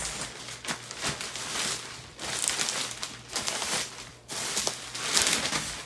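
Packaging wrap crinkling and rustling in irregular bursts as it is handled, loudest about two and a half seconds in and again near the end.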